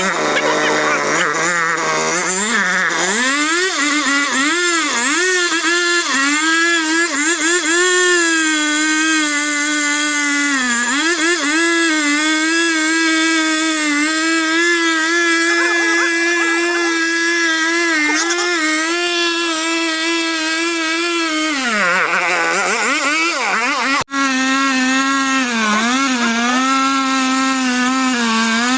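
Chainsaw engine running at high revs at a steady pitch. The revs sag and pick back up twice, once about a third of the way in and again about three-quarters in, and the sound breaks off for a split second just after the second dip.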